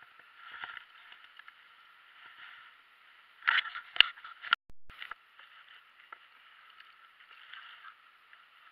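Steady rush of flowing water, with a cluster of sharp clicks and knocks about three and a half seconds in.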